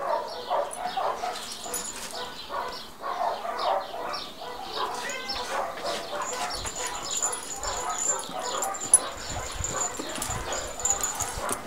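A dog whining and yipping, with many short cries in quick succession.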